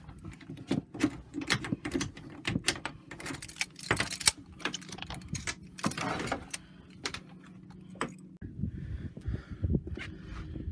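Irregular clicks, knocks and rattles of a landed redfish being handled in a metal-framed landing net on a boat deck and unhooked with pliers. A low steady hum runs underneath and stops about eight seconds in.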